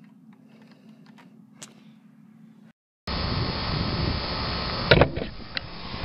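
Faint clicks of thermostat buttons over a low hum. Then, after a brief cut to silence about three seconds in, a York 2.5-ton central air conditioner's outdoor unit runs loud and steady, its condenser fan and compressor still on after the shut-off attempt at the thermostat. A couple of sharp knocks come near the end.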